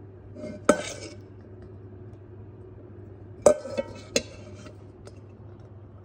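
Metal spoon striking a stainless steel mixing bowl: one clink with a short ring about a second in, then three quick clinks a little past halfway.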